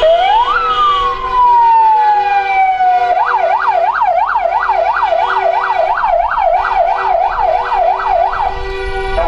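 Electronic siren giving one quick rising sweep that falls slowly in a wail, then switching about three seconds in to a fast yelp of about three rises a second, which stops shortly before the end. Steady tones sound beneath it throughout.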